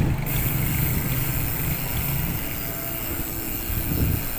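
Street traffic noise with a small motor vehicle engine running steadily.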